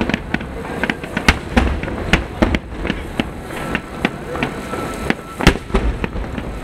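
Aerial firework shells bursting in a rapid, irregular barrage of bangs over a low rumble, with the sharpest, loudest bang about five and a half seconds in.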